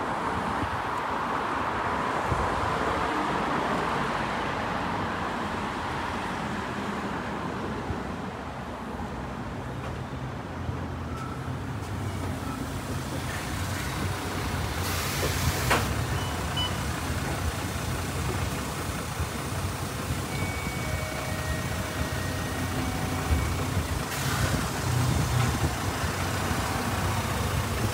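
City bus on the move heard from aboard: a steady low engine rumble under road noise, with one sharp click about halfway through.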